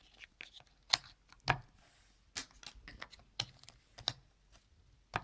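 Cardboard jigsaw puzzle pieces being handled and pressed into place, giving a series of irregular sharp taps and clicks, about six louder ones among softer rustles.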